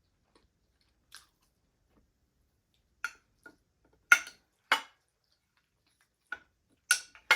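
Close-miked wet mouth smacks and clicks from eating, about eight short ones spaced irregularly a second or so apart, the loudest about four seconds in and near the end.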